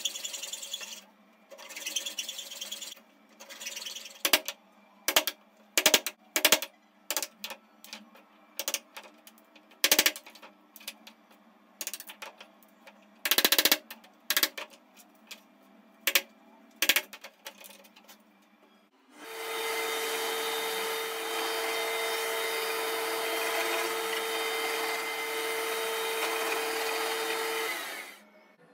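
A hacksaw cutting a small piece of pine in a few strokes, then a long series of sharp knocks as a wood chisel is struck to chop a notch. From about 19 s a horizontally mounted electric drill runs steadily with a steady whine for about nine seconds and stops suddenly near the end.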